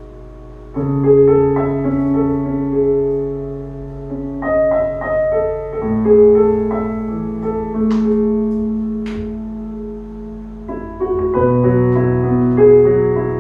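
Slow instrumental piano music: held chords, each sounding on and fading before the next, with no voice.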